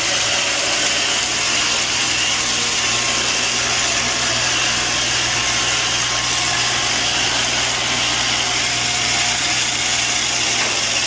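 Robot vacuum cleaner running: a steady, unchanging hiss of its motor and brushes with a low hum underneath.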